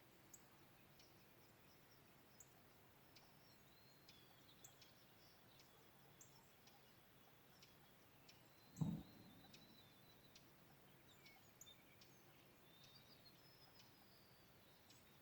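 Faint birds chirping and trilling in quiet morning outdoor ambience. A single low thump sounds about nine seconds in.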